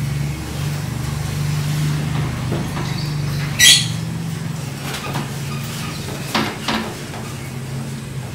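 A steady low mechanical hum, with a short hiss about three and a half seconds in and a few light knocks of cookware in the second half.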